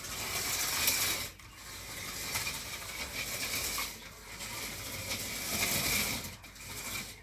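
Toy electric truck running around a plastic track layout, its small motor and gears giving a continuous rattling clatter that dips briefly three times as it goes round.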